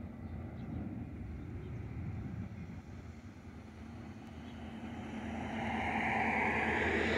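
Metra commuter train approaching: a steady low diesel rumble that grows steadily louder from about five seconds in as the train nears.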